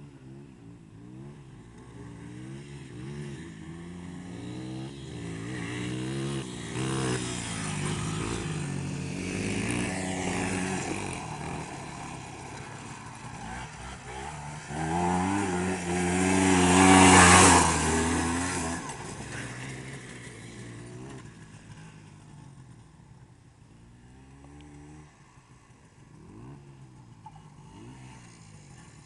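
Polaris Trail Blazer 250 ATV's two-stroke single-cylinder engine revving up and down as it rides the dirt track. It grows loud as it climbs a hill nearby a little past the middle, then fades away into the distance.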